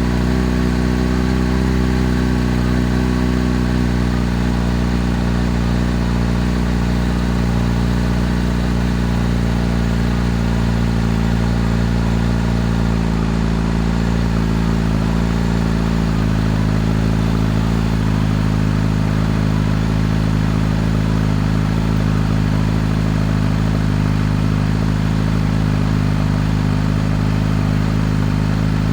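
Kawasaki Z H2's supercharged inline-four engine idling steadily, its pitch easing slightly lower about halfway through.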